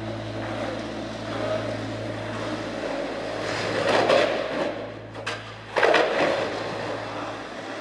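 Several skateboards rolling on smooth concrete, with loud board clatter about halfway through and again near the end.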